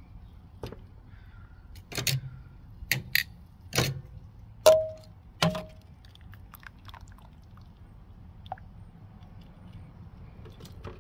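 Tongs clinking against a stainless steel saucepan while chicken is dipped in barbecue sauce: about seven sharp metallic knocks in the first half, the two loudest each leaving the pot ringing briefly, then only faint ticks.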